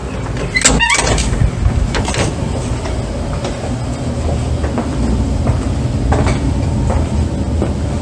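A steady low rumble with a few knocks: a door thuds shut about a second in, and fainter knocks follow as someone walks in from the entrance.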